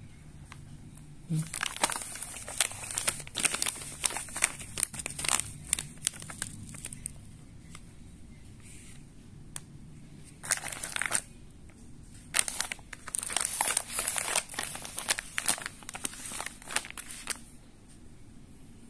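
Glossy plastic pouches of powdered drink mix crinkling as they are picked up and shifted about by hand, in several bouts of rustling with short pauses between.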